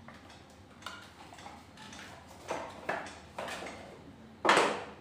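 Unboxing handling: a white cardboard box and plastic-bagged camera mounts moved about on a wooden table, giving a string of light knocks and rustles, with one louder knock near the end.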